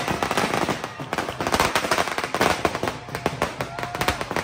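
Fireworks going off overhead: a dense, unbroken run of rapid cracks and pops, several a second, from crackling aerial bursts.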